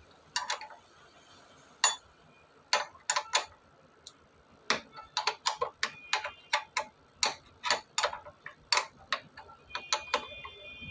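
Ratchet wrench clicking as a mechanic loosens the two 12 mm bolts holding the front disc brake caliper on a Hero Ignitor motorcycle. A few scattered clicks come first, then a run of quicker clicks, about two or three a second, from about halfway.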